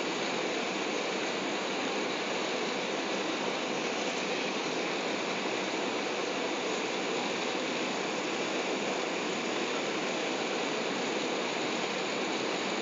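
Steady cabin noise inside an Airbus A380 airliner in flight, heard from a window seat: an even, unbroken rush of airflow and engine noise.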